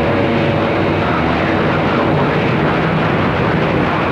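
CB radio receiving on channel 28: loud, steady static and hiss with faint steady tones buried in the noise.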